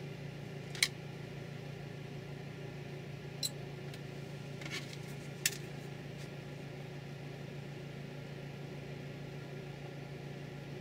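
Steady low hum of room noise, with a few small sharp clicks in the first half from the LED and tools being handled on the bench.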